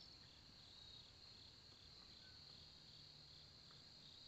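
Faint evening chorus of insects: a steady high-pitched trill with a regular chirping pulse about three times a second.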